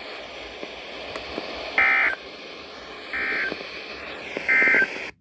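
NOAA Weather Radio sending its SAME end-of-message code: three short warbling digital data bursts, about a second and a half apart, closing the weekly test broadcast. A steady radio hiss lies under them and cuts off abruptly near the end.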